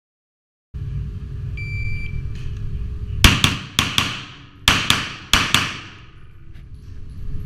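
A shot timer's short start beep, then pistol shots echoing in an indoor range: a quick string of about three, a pause of about a second, then a second string of about four. A steady low hum runs underneath.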